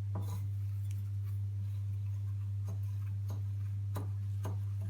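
Faint, scattered crackles and clicks of crushed roasted vermicelli being pressed around a potato cutlet by hand, over a steady low electrical hum that is the loudest sound throughout.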